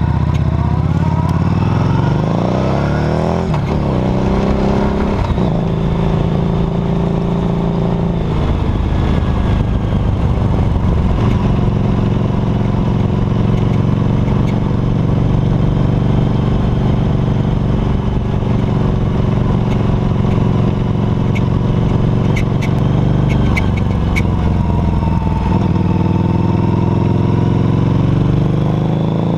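Harley-Davidson Night Rod Special's liquid-cooled V-twin under way, heard close up from the rear footpeg. Its pitch climbs and drops back twice in the first few seconds, then it runs steadily, dips about three-quarters of the way through and climbs again near the end. A few sharp clicks come in the steady stretch.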